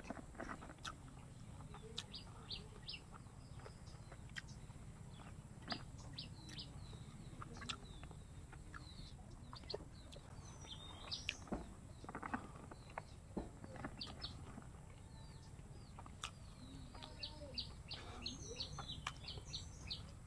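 Birds chirping over and over in short high calls, with scattered clicks and smacks from someone eating by hand, over a steady low rumble.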